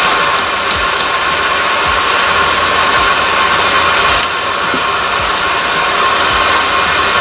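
Forge air blower running steadily, a loud even rushing of air forced through the fire, easing slightly about four seconds in.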